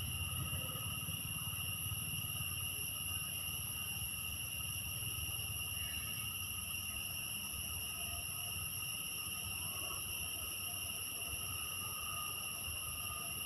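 Insects calling in one steady, unbroken high drone, with a low rumble on the microphone that eases off after the first few seconds.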